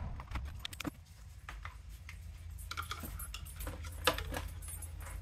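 Loose insulated copper wires, clipped from a wire harness, rustling and clinking against metal tools and small plastic parts as they are gathered up by hand, with irregular clicks and a sharper clack about four seconds in.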